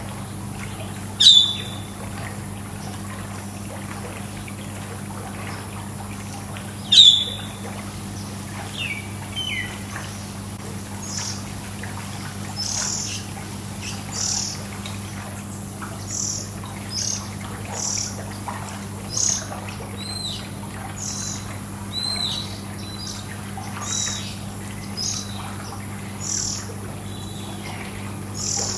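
Small birds chirping: two loud sharp calls near the start and about seven seconds in, then a short high chirp repeated about once a second for the rest, over a steady low hum.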